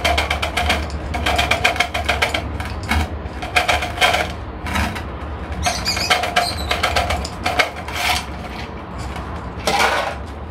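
Gritty succulent potting mix being shaken from a plastic container into a small terracotta pot and worked in by gloved hands. It comes as bursts of rapid small clicks and crinkly scraping, over a low steady hum.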